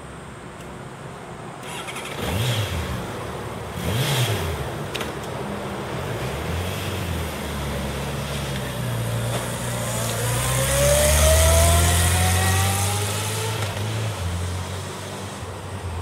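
Honda CBR1100XX Super Blackbird's inline-four engine revved in two short blips, about two and four seconds in. It then pulls away with its pitch rising as it accelerates, loudest past the middle, and fades as the bike rides off.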